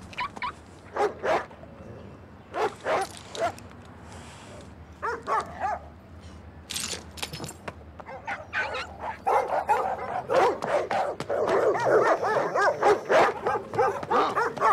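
Dog barking in short separate bursts, then, from about nine seconds in, a louder, fast run of yelps and whines.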